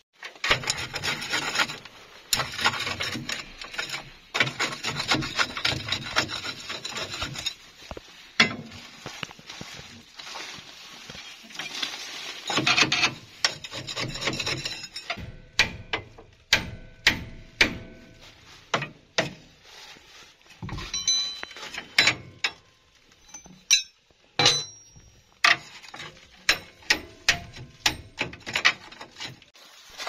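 Metal tools scraping and rasping on the concrete mixer's gritty belt-pulley drive for about the first half. Then a run of sharp metal clinks and knocks, some leaving a short ring.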